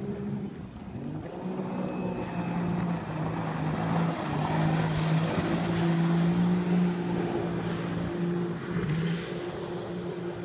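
Belassi B3R Sport jet ski's 315 hp engine at speed as it runs past, growing louder to a peak in the middle and fading as it pulls away, with the hiss of its spray at the loudest point.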